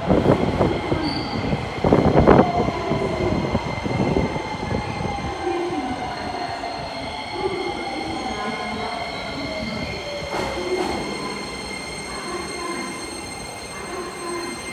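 Chiba New Town Railway 9200 series electric train with Toyo IGBT-VVVF inverter drive braking into an underground station. Its wheels rumble loudly at first, then a motor whine falls slowly in pitch as it slows, over a steady high-pitched squeal, with the noise echoing off the station walls.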